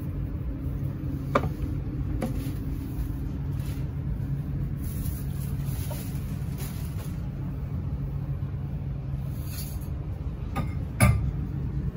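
Steady low hum inside the passenger car of a Blues InterCity train, with a light knock about a second and a half in and a louder thump near the end.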